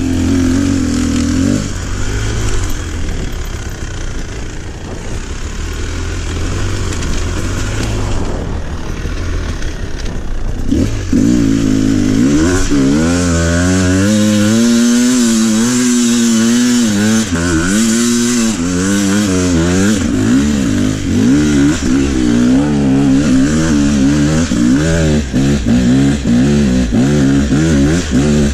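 Beta dirt bike engine revving up and down under the throttle. It drops back and eases off for several seconds early on, then picks up again about a third of the way in and keeps rising and falling with repeated throttle changes.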